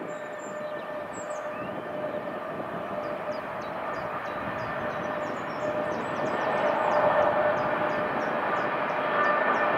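Pair of electric locomotives hauling a container freight train, a steady rumble with a whine of several held tones that grows louder about two-thirds of the way in as the train draws nearer.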